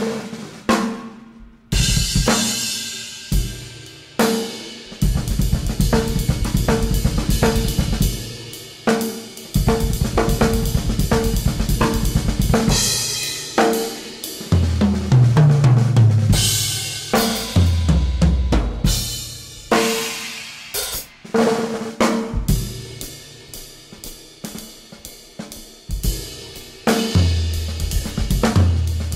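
Improvised music on a drum kit: snare, bass drum, hi-hat and cymbal crashes in loose, shifting patterns. For stretches from about halfway through, low bass notes step up and down underneath.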